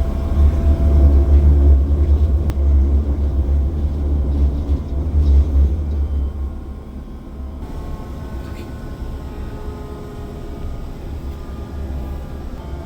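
Narrow-gauge passenger train running, heard from inside the carriage as a heavy low rumble that eases off a little past halfway, leaving a quieter running noise with a faint steady whine.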